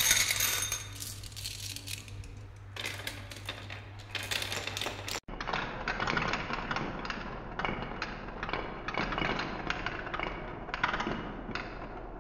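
Many glass marbles rolling and clattering along a wooden marble run track and around a plywood spiral, a dense rattle of marbles clicking against wood and against each other. There is a brief gap about five seconds in, after which the rattling goes on.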